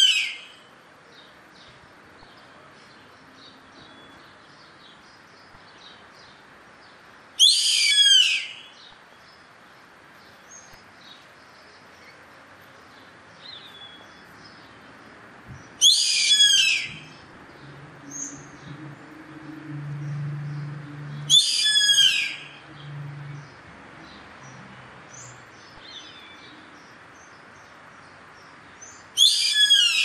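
Yellow-headed caracara calling: loud calls about a second long, each sliding down in pitch, four times several seconds apart, with the tail of another at the start. Faint chirps of small birds sound between the calls.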